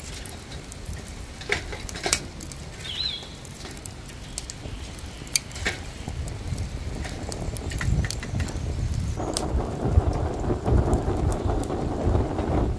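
Metal tongs setting lumps of charcoal and wood into a metal kettle grill, with scattered sharp clacks and clinks. About nine seconds in, a steady rush of air starts as the coals are fanned with a woven hand fan to get them burning.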